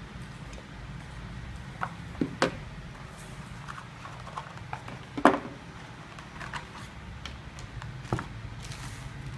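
Handling noises: a few scattered knocks and clicks as a plastic hair clipper and its accessories are set down on a wooden table and a molded pulp packaging tray is lifted out. The loudest knock comes a little past the middle, and a faint rustle comes near the end, over a steady low room hum.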